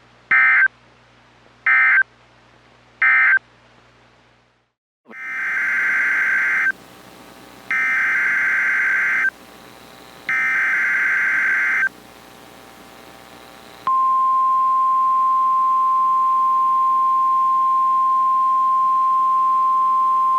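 Emergency Alert System tones from a NOAA Weather Radio broadcast. First come three short, shrill data bursts, the end-of-message code closing one special marine warning. After a pause come three longer data bursts, the SAME header of the next warning, and about 14 s in the steady 1050 Hz weather radio alert tone begins and holds.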